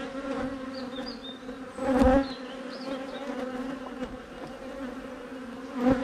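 Honey bees buzzing around an opened hive: a steady hum that swells louder for a moment about two seconds in.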